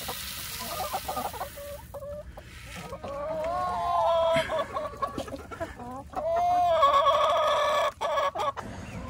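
A flock of chickens clucking while they feed, with a couple of longer drawn-out calls, one about three seconds in and one about six seconds in.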